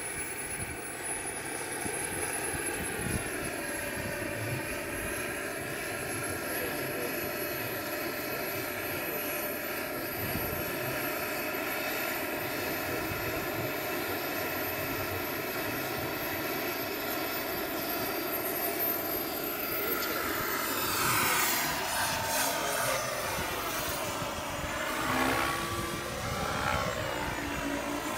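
Small gas-turbine engine of an RC helicopter running at idle with its rotor turning: a steady multi-tone whine with a very high note that slowly climbs in pitch. About 20 seconds in, the sound swells and sweeps up and down in pitch as the helicopter lifts off and flies.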